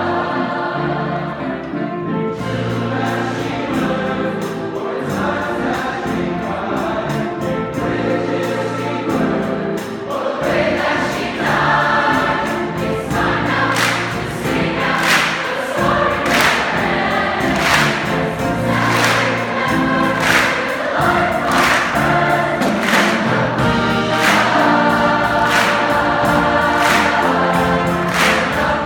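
Large choir singing sustained chords with a jazz band accompanying. Sharp percussive hits come in about two seconds in and grow heavier from about halfway, roughly one a second.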